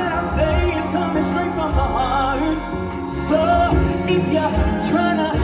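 Live band and vocal group performing a song: sung vocals with vibrato over bass and drums.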